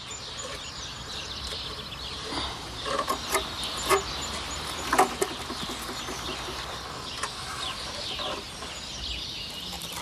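Bird calls over outdoor ambience, with a few sharp knocks of plastic pipe and wooden stick as a kea works a puzzle apparatus; the loudest knock comes about five seconds in.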